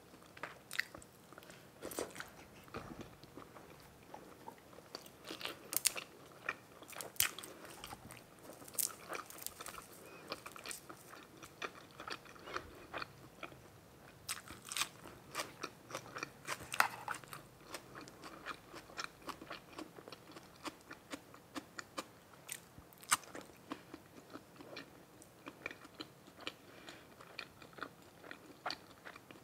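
Close-miked eating: a person biting and chewing grilled pork meatballs and red sausage, with many irregular crisp clicks and crunches.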